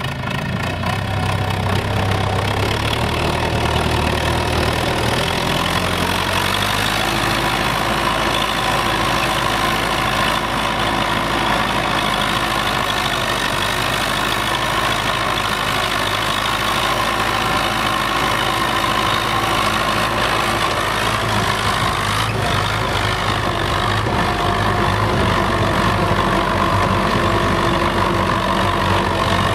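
Belarus MTZ-82 tractor's four-cylinder diesel engine running steadily while the tractor works, pulling a plough through frozen, snow-covered ground. The engine grows louder in the first couple of seconds, and its note shifts about seven seconds in.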